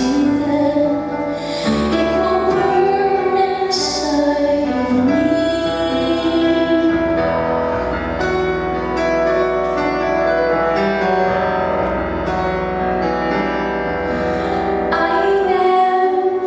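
Live solo performance of a woman singing to her own piano accompaniment, with sustained and bending sung notes over struck piano chords.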